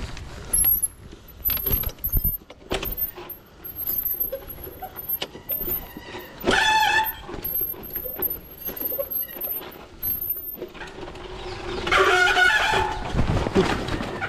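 Bicycle rattling and knocking over a rough dirt track. Two loud drawn-out pitched calls stand out above it, a short one about halfway through and a longer one near the end.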